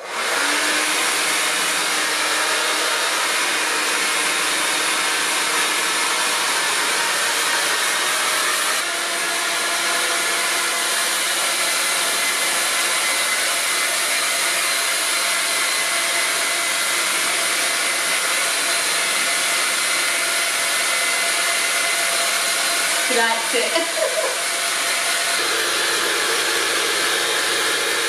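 Panasonic rose gold hair dryer running continuously: a steady whooshing blow with a faint whine in it. Its sound shifts slightly about nine seconds in and again near the end.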